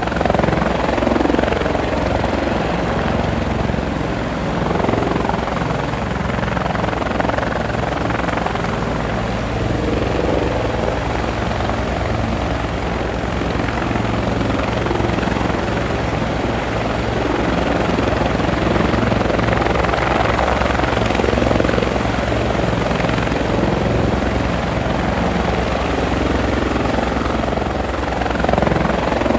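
Rotorcraft running steadily overhead or on board: a continuous whirring with a fast low pulse of the blades and a thin high whine, holding an even level throughout.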